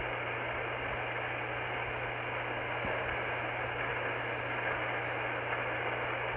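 Icom IC-R30 receiver tuned to 27.385 MHz lower sideband, putting out steady static hiss from its speaker with a low hum underneath. It is the open channel between CB sideband transmissions.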